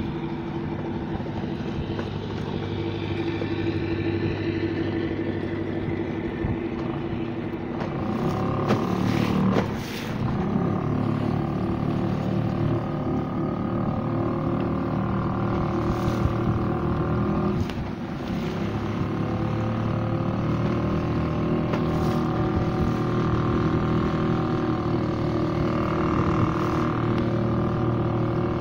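A small motorboat's engine running steadily under way, with water rushing along the hull. It gets briefly louder about eight seconds in.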